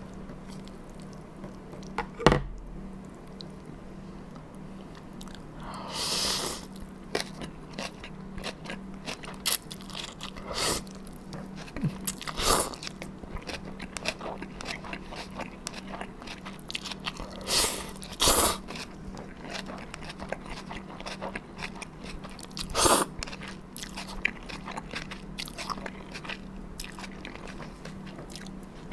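Close-miked eating of cold buckwheat noodles and dumpling soup: steady wet chewing and mouth clicks, with several short, louder slurps spread through. There is a sharp tap about two seconds in.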